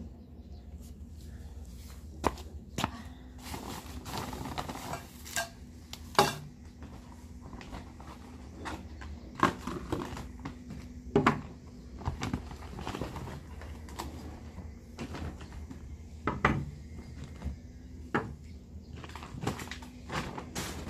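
Sharp clinks and knocks of hard objects being handled, irregular, a dozen or so, over a low steady hum.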